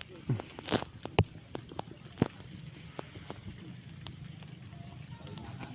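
Insects chirring in a steady high-pitched drone, with a second, pulsing insect call just below it. A few sharp clicks and knocks sound in the first couple of seconds, the loudest a little after two seconds in.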